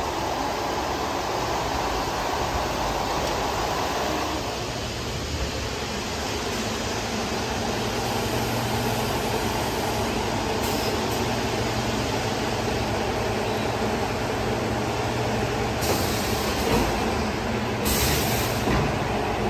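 Automatic film shrink-wrapping machine for bottled water running: a steady mechanical noise with a low hum from its shrink tunnel and mesh conveyor, and two short hisses near the end.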